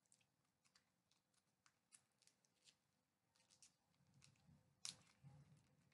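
Near silence with faint scattered clicks and crinkles, a slightly louder click about five seconds in: a Warheads sour candy packet being handled.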